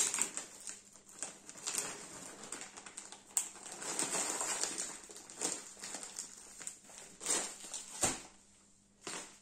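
Plastic bags crinkling and rustling as they are handled, with many small irregular clicks and ticks, thinning out near the end.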